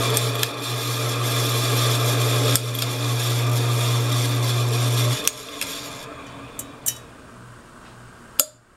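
Encon Emperor ceiling fan motor running with a loud steady hum that stops abruptly about five seconds in, followed by a few sharp clicks.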